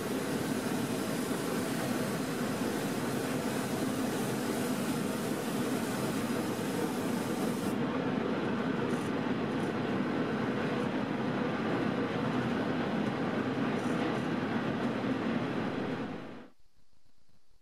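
A steady rushing machine noise with a low rumble. Its hiss thins about eight seconds in, and it stops abruptly near the end.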